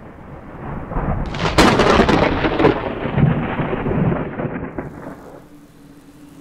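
A long thunderclap: a rumble that builds, cracks loudly about a second and a half in, then rolls away and fades over several seconds.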